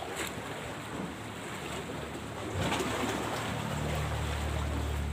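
Wind and surf noise, with a few faint clicks, then a low steady engine hum that comes in about three and a half seconds in and keeps going.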